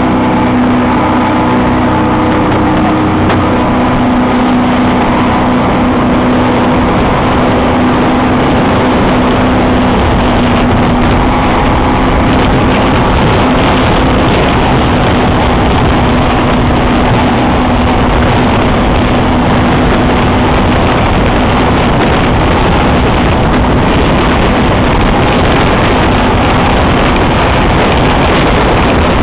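Evinrude outboard motor on a speedboat running steadily at speed while towing, mixed with rushing water from the wake and wind on the microphone.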